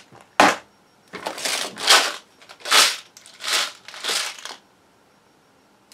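A large plastic shopping bag and the plastic packets inside it crinkling and rustling as they are rummaged through and handled: one short sharp rustle, then about five crinkles in a row.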